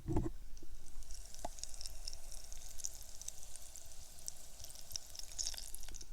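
Hot oil in a deep fryer sizzling and crackling around a flour-and-egg-battered screwdriver, a steady dense crackle of popping bubbles. There is a brief low thump right at the start.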